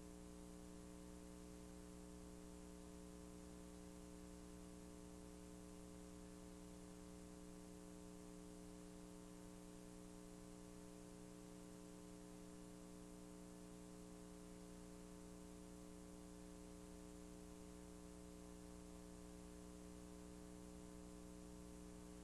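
Near silence: a steady, unchanging electrical hum with faint hiss.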